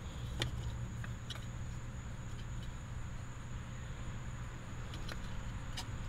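Steady low hum of workshop background with a faint high steady whine, broken by a few light clicks and taps.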